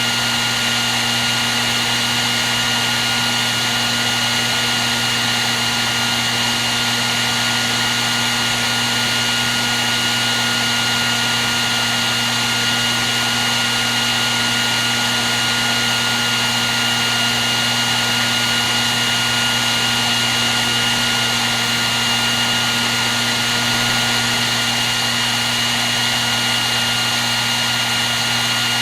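Hair dryer running continuously at a constant setting: a steady rush of blown air with a motor hum and a couple of fixed whining tones.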